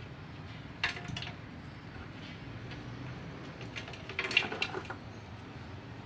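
Small stones scooped from the ground and dropped into an empty metal Yamaha motorcycle fuel tank, clinking and rattling against the metal. The pebbles are being loaded so they can scour the rust out of the tank. There is a couple of sharp clinks about a second in, then a quick cluster of rattles around four seconds in.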